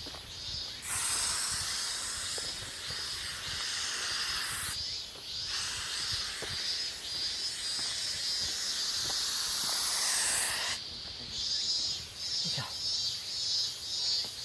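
Aerosol mosquito-repellent spray (Yabu-ka Barrier) hissing in two long bursts, the first about four seconds, the second about five and a half, with a short break between.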